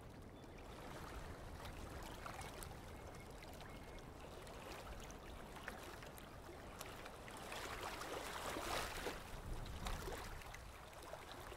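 Faint wash of shallow water running and lapping over rippled sand at the tide's edge, swelling a little about eight seconds in.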